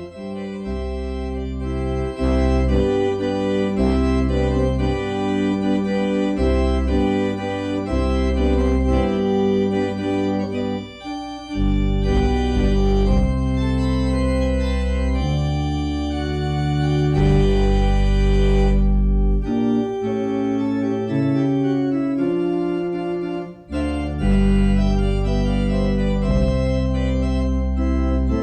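Organ playing the closing postlude of a church service: held chords over deep bass notes, changing every second or two.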